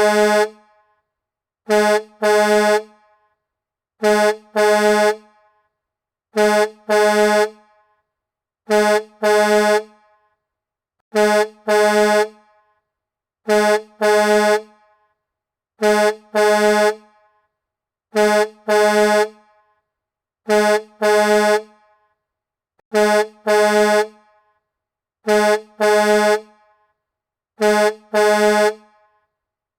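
Semi-truck horn honking in a repeating double blast, a short honk then a slightly longer one, about every two and a half seconds, as a looped sound effect.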